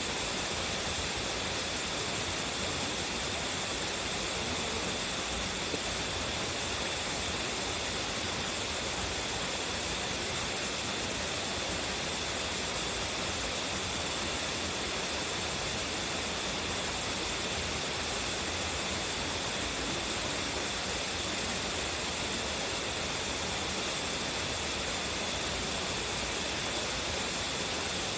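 Waterfall with a strong flow, its falling water making a steady, unbroken rush of noise.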